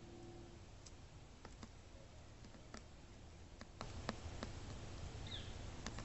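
Downy woodpecker pecking at a caged suet cake: irregular sharp taps of its bill, coming faster about four seconds in.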